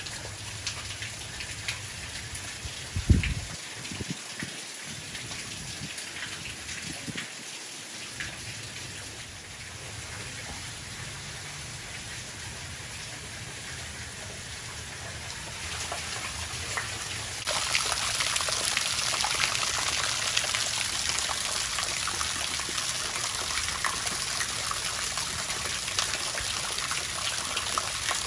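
Steady rain falling, a fine hiss of many drops. A single low thump sounds about three seconds in, and the rain gets louder about two-thirds of the way through.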